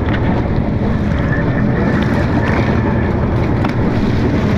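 Sportfishing boat's engine running with a steady low hum, wind buffeting the microphone and water washing along the hull, with a couple of brief clicks.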